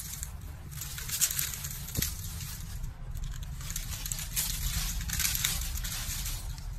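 Dry palm fronds rustling and crackling in irregular surges as they are handled and shifted about by hand.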